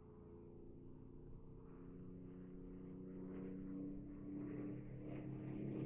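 P-51D Mustang's Packard Merlin V12 running in flight, a steady engine drone that grows louder as the fighter comes toward the listener.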